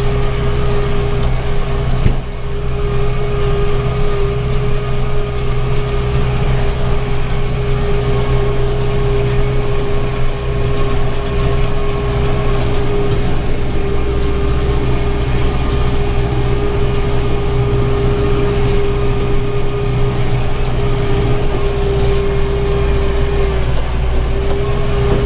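Tractor engine running steadily under load while powering a round baler picking up hay, with a steady whine over the engine rumble. A single knock about two seconds in.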